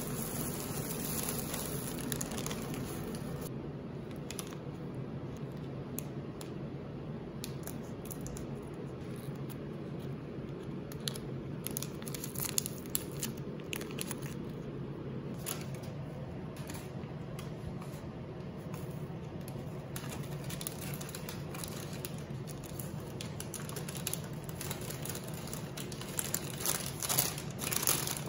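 Plastic delivery bag and paper fries bag crinkling and rustling as they are handled and opened, with scattered short crackles.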